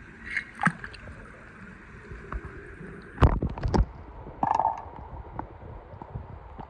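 A small die-cast toy car dropping into a pool of water: a few light knocks, then a cluster of sharp knocks and a splash about three seconds in, and watery gurgling after.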